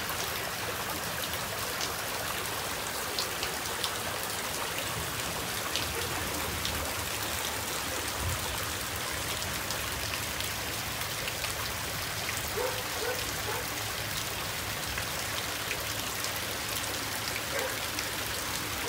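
Steady rain falling, with scattered sharper drop hits, over floodwater running across a paved yard.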